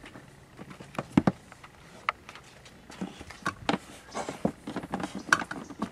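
A golf cart's charging cord and plug being handled, with a scattered series of light knocks and clicks.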